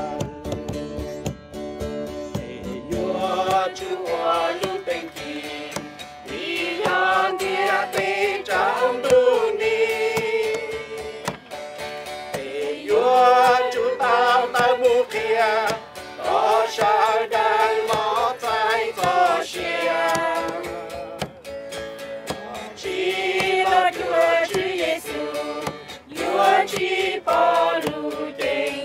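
A group of people singing a worship song, accompanied by strummed acoustic guitar, in long sung phrases with short breaks between them.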